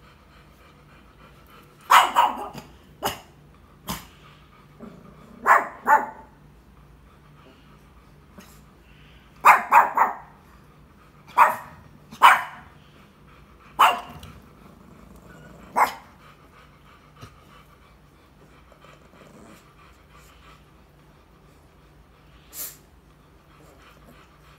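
A puppy barking in short, sharp barks, about a dozen of them, several in quick pairs, over the first sixteen seconds, with one more near the end.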